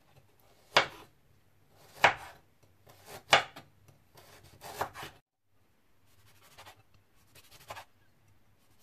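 Chef's knife slicing fresh ginger on a wooden cutting board: four sharp knocks of the blade hitting the board, roughly one every second and a half. Later come fainter, softer cuts as the knife slices through a small calamansi lime.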